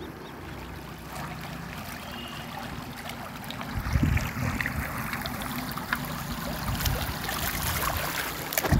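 Shallow river water running over stones, with handling noise as stones are picked from the riverbed: a heavy thump about four seconds in and a sharp knock near the end.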